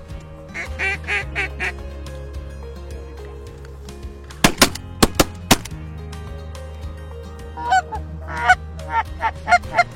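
Canada geese honking in quick runs of short calls, about a second in and again near the end. A few sharp, loud cracks come close together around the middle, over a steady low rumble.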